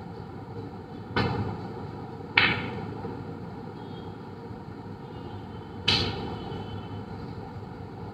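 Snooker balls being struck: three sharp clicks of cue and balls, about a second in, a second after that, and about six seconds in, each ringing out briefly.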